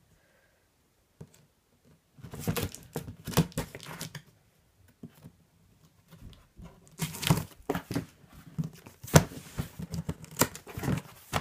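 Pocket knife slicing packing tape along the top of a cardboard box, then the cardboard flaps being pulled open, rustling and crinkling in irregular bursts with a few sharp knocks near the end. The first two seconds are quiet.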